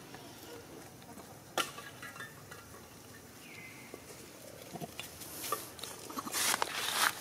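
Young macaques foraging on dry leaf litter: a sharp click about a second and a half in, a short falling squeak around the middle, and a burst of rustling and crackling near the end.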